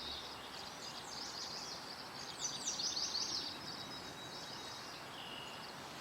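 Small birds singing: quick runs of chirping notes, loudest around two to three seconds in, over a steady outdoor background hiss.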